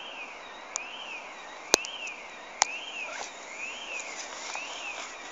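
An electronic siren-like tone wails up and down over and over, a little faster than once a second. Three sharp clicks sound in the first half, the loudest a little under two seconds in.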